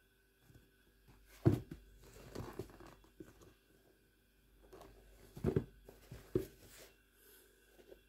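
Handling noise from used shoes being picked up and turned over by hand: a few soft knocks and rubbing sounds. The sharpest knock comes about a second and a half in, and two more come around five and a half and six and a half seconds.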